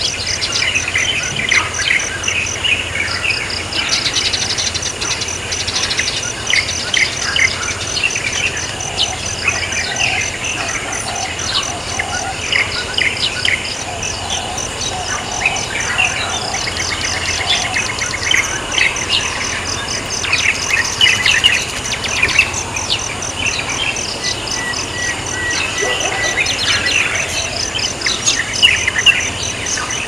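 A steady chorus of insects, with a fast pulsed high trill that comes and goes, overlaid by many short, high bird chirps and twitters.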